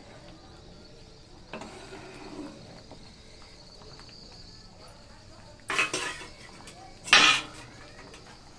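A spatula stirring boiling moong dal in a metal pan, scraping and clattering against the pan twice near the end, the second time louder.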